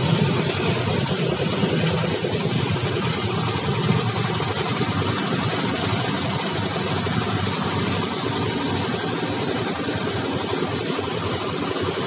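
A construction machine's engine running steadily at a constant speed.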